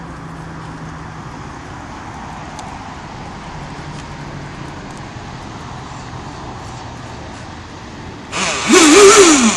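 About eight seconds in, the brushless electric motor of a radio-controlled hydroplane speed boat is throttled up briefly with the boat held out of the water. It is a loud rising whine over the rush of the spinning propeller, wavering with the throttle and then falling away. Before that there is only a steady low background hum and hiss.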